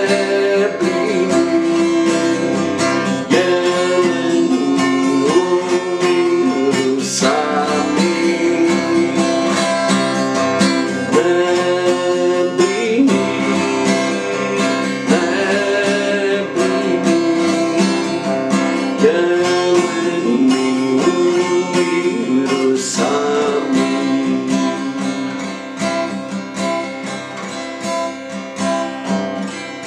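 Acoustic guitar strummed as accompaniment to a man's singing voice, with a melody line that rises and falls. The playing grows softer near the end.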